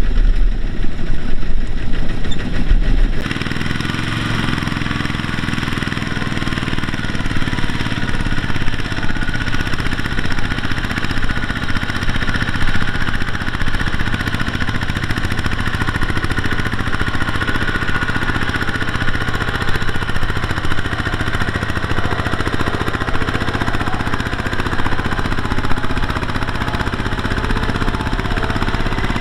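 Single-cylinder diesel engine of a Kubota two-wheel walking tractor running steadily under load, pulling a trailer of rice sacks through mud. It is louder and deeper for the first three seconds, then settles to a steady chugging.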